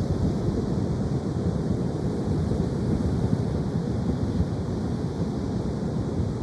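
Ocean surf washing steadily onto the shore, with wind rumbling on the microphone.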